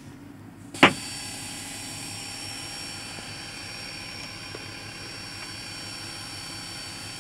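A single sharp click about a second in, then a steady hiss with a faint high-pitched whine. The subwoofers are not yet playing the test tone.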